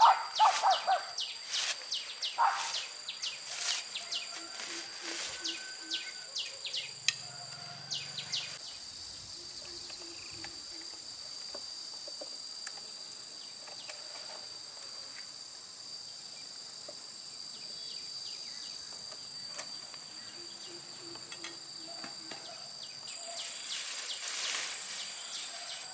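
Insects, crickets or cicadas, keeping up a steady high-pitched drone on two held tones. Irregular sharp clicks and knocks come through it in the first third and again near the end.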